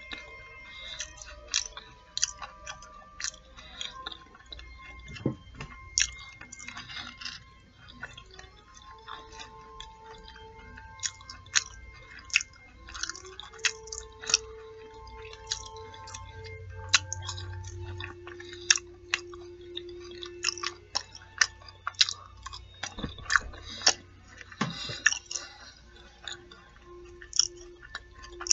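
Close-miked chewing and biting of fried fish nuggets and fries, with irregular crisp crunches. Soft held notes of background music run underneath.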